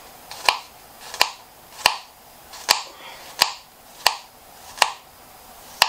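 Kitchen knife slicing a garlic clove into thick slices on a cutting board, each cut ending in a sharp knock on the board: about eight cuts at a slow, even pace.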